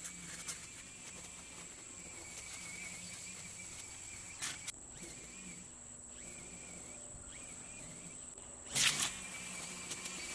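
Faint, distant Makita 18V brushless cordless string trimmer running: a thin, wavering high whine that drops out briefly a few times. There are two sharp clicks, about four and a half and nine seconds in.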